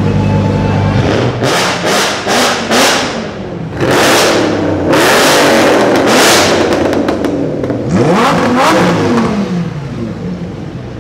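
Lamborghini Huracán's V10 idling briefly, then blipped hard four times in quick succession. It follows with longer loud revs, the last one sweeping up and down in pitch.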